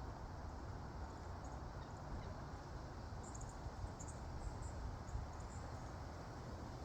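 Faint, short, very high chirps from an animal, a quick cluster of them starting about three seconds in and ending around five and a half seconds, over a steady low background rumble.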